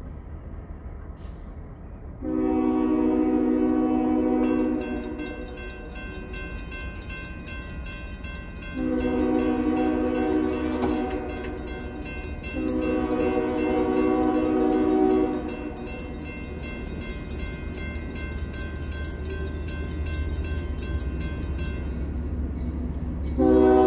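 Air horn of a GE ES40DC freight locomotive sounding three long blasts for a grade crossing, with a fourth starting near the end. From about five seconds in, the crossing's warning bell rings steadily until shortly before the last blast, as the gates come down.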